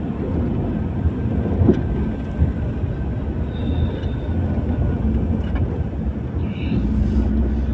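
Car interior road noise while driving: a steady low rumble of engine and tyres, with a few light knocks.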